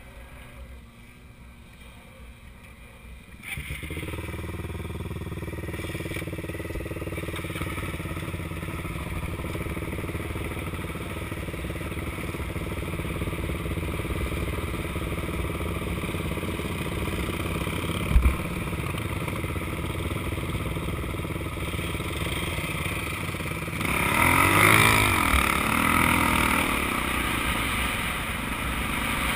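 Dirt bike and quad engines idling, getting louder about three seconds in. A sharp knock comes midway, and near the end the engine revs up and down in pitch as the dirt bike pulls away.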